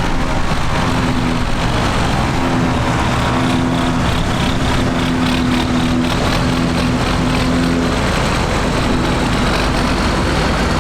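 Vintage farm machinery running steadily: an engine drone holding an even pitch and level throughout.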